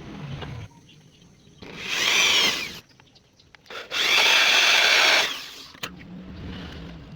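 A power tool working wood in two bursts of one to two seconds each, its whine bending up and down as it bites.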